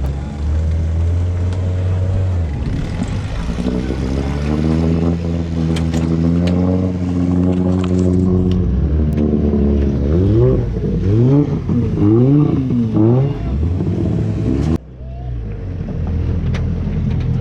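An engine running steadily, then revving up and down several times in quick succession. The sound changes abruptly near the end.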